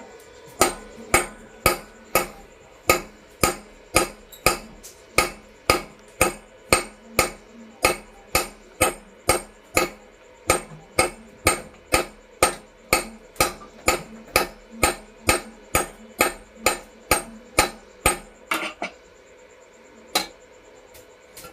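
Blacksmith's hammer striking metal on an anvil in a steady rhythm of about two blows a second, as in forging steel. The blows stop a few seconds before the end, and one last blow follows.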